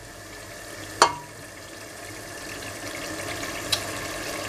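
Green cilantro sofrito starting to boil in a stainless-steel pot, a steady bubbling sizzle, with one sharp knock about a second in.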